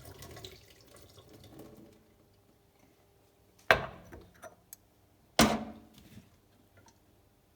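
Water trickles briefly as the first rinse of the tea leaves is poured. Then come two sharp clinks of teaware being set down, about a second and a half apart, with a few light taps.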